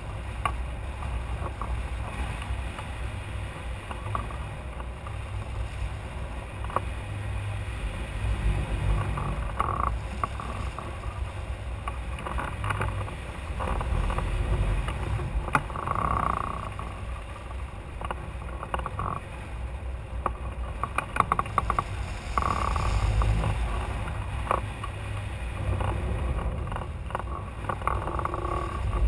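Airflow buffeting a hang glider's keel-mounted camera in flight: a steady low wind rumble over the microphone, with the sail and rigging fluttering and rattling in short clicks.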